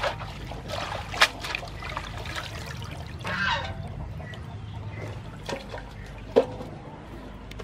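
Water spinach being washed by hand in a large metal basin of water: swishing and splashing, with water trickling off the bunch as it is lifted out. A couple of sharp knocks cut through, one about a second in and one near the end.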